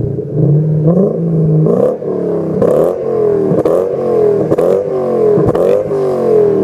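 Lexus GS430's 4.3-litre V8 through an aftermarket HKS exhaust, revved in about six quick throttle blips, roughly one a second, each rising sharply and dropping back toward idle.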